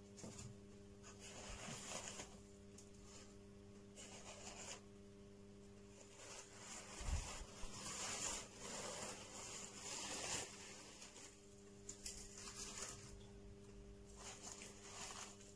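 Faint crinkling and rustling of paper packing and paper-towel wrappings being handled in a cardboard box, in bursts that come and go, over a low steady hum. A soft low bump comes about halfway through.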